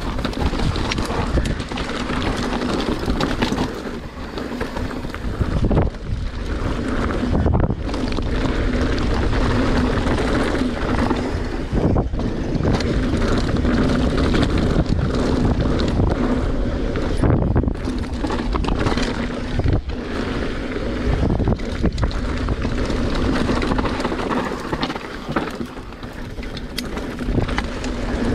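Wind buffeting a GoPro's microphone as a mountain bike descends a rough downhill trail. Under it are steady tyre noise over dirt and rock, with frequent short knocks and rattles from the bike on the rough ground.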